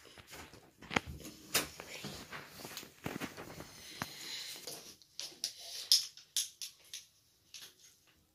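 Fabric rustling and scattered sharp clicks and knocks as someone gets up off a bed and handles clothes on plastic hangers on a hanging clothes rack.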